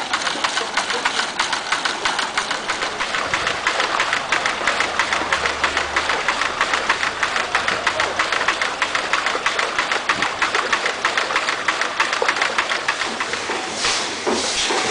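Small live-steam stationary engines running, a steady fast clatter of valve gear and exhaust beats. Near the end it gives way to a slower, heavier beat with a hiss of steam.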